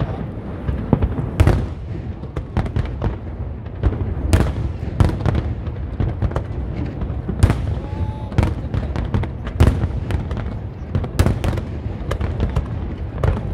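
Fireworks display: aerial shells and launched comets going off in repeated sharp bangs at irregular intervals, over a continuous low rumble of further bursts.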